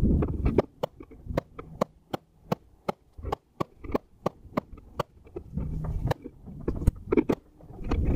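Serrated knife sawing through the layered yellow aramid fibres of a soft body armor panel: a run of sharp clicks, about two to three a second, as the blade works through the fibres. A low rumble sits under it at the start and again late on.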